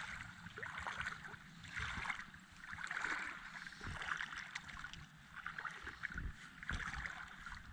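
Shallow water sloshing and splashing at the shore in uneven swells about once a second, over a low rumble of wind on the microphone.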